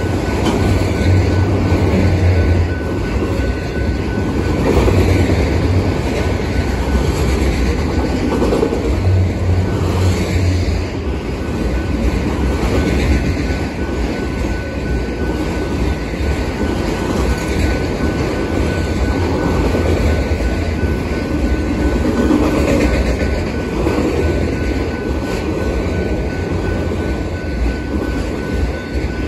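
Freight train of enclosed autorack cars rolling past, a continuous loud rumble of steel wheels on the rails that swells and eases as each car goes by.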